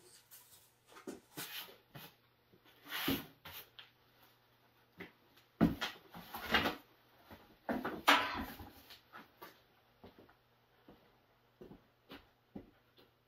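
Irregular rustling of a plastic bag being handled, with a few sharp knocks and thumps, and quieter after about nine seconds.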